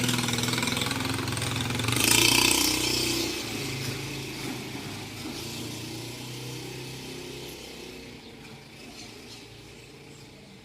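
Vehicle engine running steadily, swelling briefly about two seconds in, then gradually fading out.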